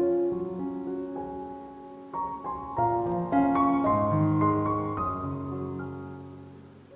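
Soft background piano music, slow held notes and chords, fading out near the end.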